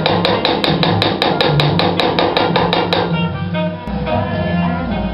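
Small hammer tapping a hand-engraving chisel into a steel machete blade, about six quick taps a second, which stop about three seconds in. Background music plays throughout.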